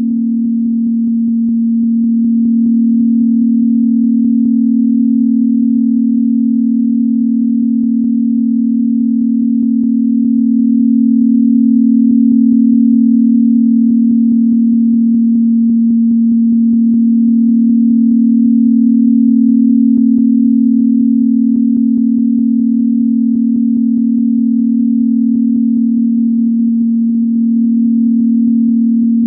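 Steady low pure tone of a synthesized 'healing frequency' track, holding one pitch while its loudness slowly swells and eases.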